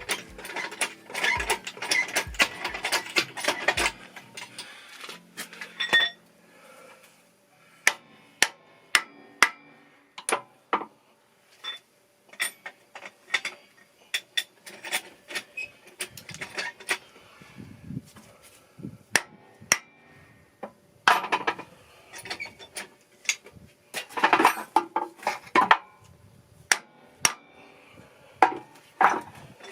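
Hand tools and metal parts of a tractor power steering hydraulic cylinder being handled during its rebuild: irregular clicks, taps and knocks, thickest in the first few seconds and again in two clusters about two-thirds of the way in.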